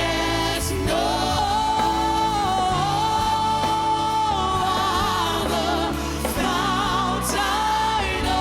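Live gospel worship band with singers: voices hold long sung notes over keys, bass and drums, with a cymbal crash now and then.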